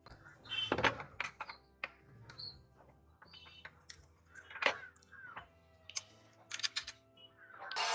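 Scattered light clicks and taps of small metal parts and tools being handled during the restoration, irregular, with sharper knocks about a second in and near the middle.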